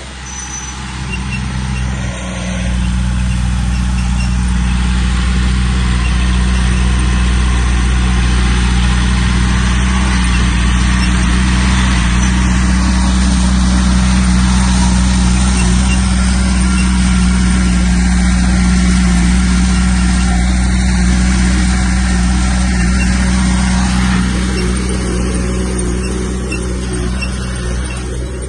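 Heavy diesel engine of earthmoving machinery running steadily, growing louder about two seconds in, holding, and easing off near the end.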